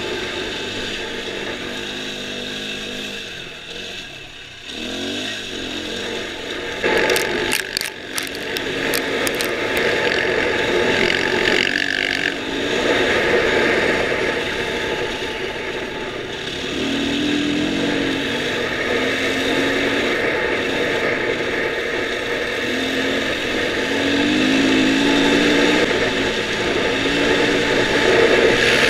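Dirt bike engine running at speed on a sandy track, its pitch rising and falling as the throttle opens and closes, under a steady rush of wind and tyre noise. The engine eases off briefly about four seconds in, and a burst of rattling clatter comes a few seconds later.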